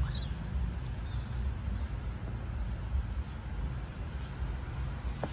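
Outdoor ambience: a steady low rumble, with a few faint high chirps in the first second or so.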